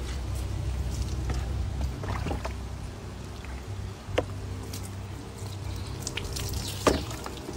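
Water poured from a plastic mug over a person, splashing and trickling off onto the ground in repeated scoops, with a sharp splash near the end, over a steady low hum.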